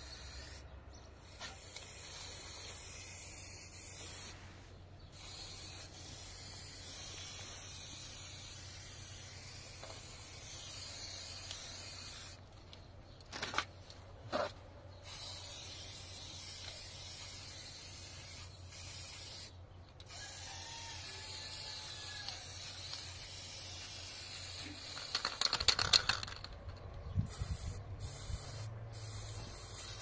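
Aerosol spray-paint can hissing in long bursts against a wall, stopping and restarting every few seconds as lines are sprayed. A few sharp clicks come in one of the pauses, and a short clatter near the end is the loudest sound.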